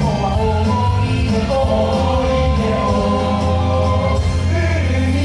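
Background music with voices singing held notes over a steady bass line.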